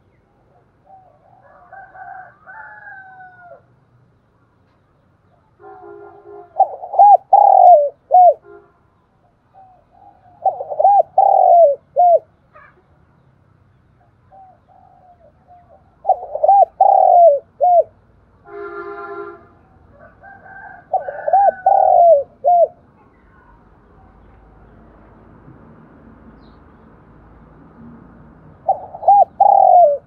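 Spotted dove cooing: five loud phrases of its song, each a run of quick curved coos, a few seconds apart, with fainter calls between them.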